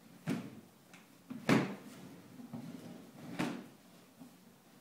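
Hollow plastic knocks and scrapes from a plastic storage box and its snap-on lid as a cat pushes and noses at it, shoving the box along a wooden floor. There are three separate clatters, the loudest about a second and a half in.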